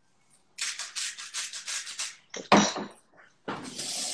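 A lime being zested on a grater: a quick run of about ten rasping strokes, some seven a second. A single sharp knock follows, and a tap starts running near the end.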